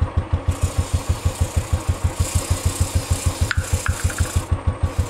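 Royal Enfield Bullet's single-cylinder engine running in first gear with the rear wheel turning, a steady beat of about ten thumps a second. An aerosol chain cleaner hisses onto the moving drive chain from about half a second in until near the end.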